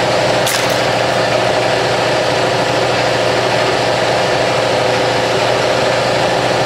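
Hydraulic press's pump motor running steadily with the ram at rest: a loud, even mechanical hum.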